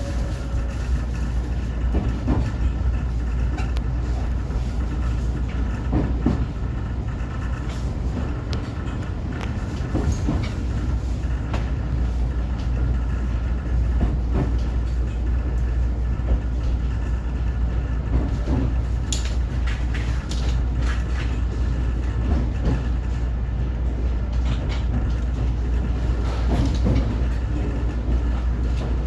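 A 125-series electric railcar running along the line: a steady low rumble and hum, with occasional sharp clicks from the wheels on the rails.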